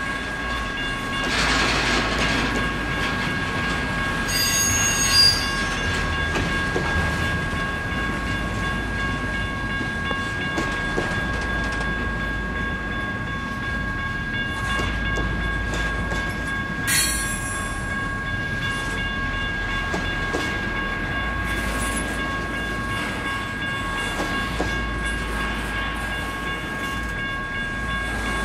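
CSX intermodal freight train of container cars rolling steadily through a grade crossing, with the continuous rumble and clatter of its cars. A steady high ringing tone runs throughout. Short high-pitched screeches come about four to five seconds in (the loudest moment) and again near seventeen seconds.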